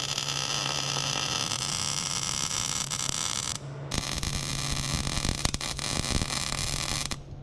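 Welding arc hissing and crackling as a bead is laid, stopping briefly about three and a half seconds in and then starting again for a second run before cutting off near the end.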